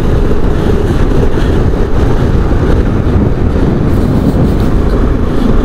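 KTM 390 Adventure motorcycle under way on a mountain road: a steady, loud low rumble of wind buffeting the microphone over the engine running.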